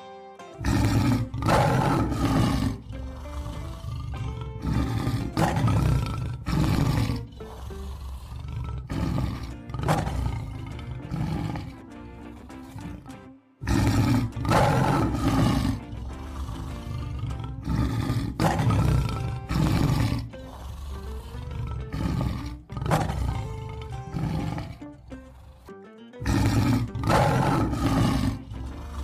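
Male lion roaring in repeated bouts of deep, loud calls. The sound breaks off briefly about halfway through and again near the end.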